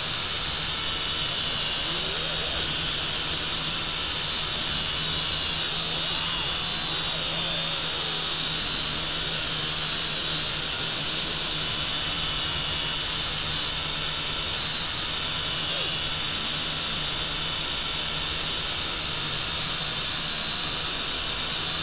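Small Syma quadcopter's motors and propellers in flight, heard through its onboard camera: a steady whirring hiss with a low hum, its pitch drifting slightly up and down as the throttle changes.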